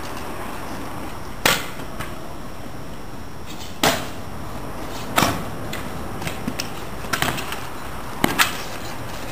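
Kick scooter rolling on pavement over a steady hiss, its metal deck and wheels clacking sharply on the ground about five times, with a quick double clack near the end.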